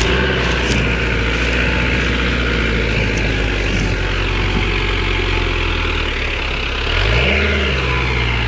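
Tractor engine running at a steady speed, revved up briefly near the end and then dropping back.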